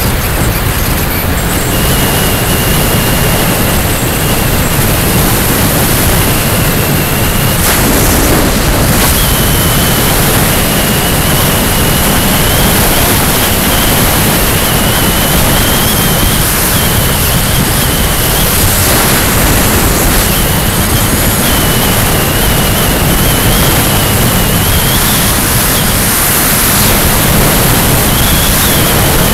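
Loud, steady rush of wind and road noise on a vehicle-mounted camera's microphone at road speed, with a faint high whine that wavers in pitch.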